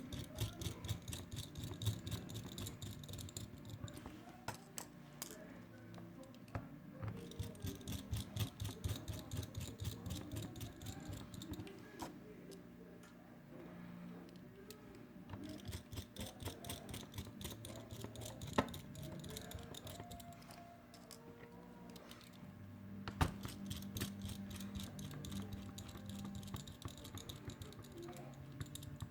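Small screws being driven into a rugged phone's housing with a precision screwdriver: runs of rapid light clicking in several stretches, broken by short pauses and a few single sharper clicks.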